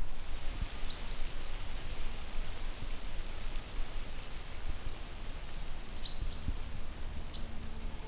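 Small songbirds' short, high, thin calls, a few brief chirps about a second in and several more toward the end, over steady outdoor background noise with a low rumble.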